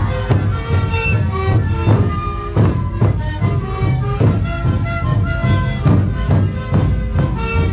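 Sikuri band playing live: many siku panpipes blow a breathy melody together over large bombo bass drums struck on a steady beat.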